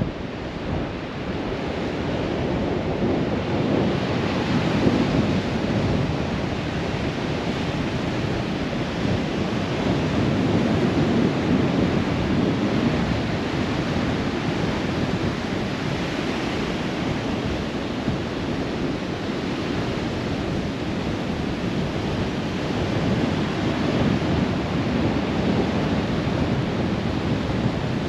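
Strong calima sandstorm wind buffeting the microphone, a low rumbling rush that rises and falls in gusts, with surf on the beach mixed in.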